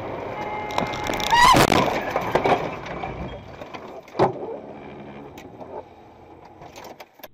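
A car crash heard from inside the dashcam car: a loud crash with a wavering squeal about a second and a half in, then a second sharp bang about four seconds in. After that the road noise fades, and the sound cuts off at the end.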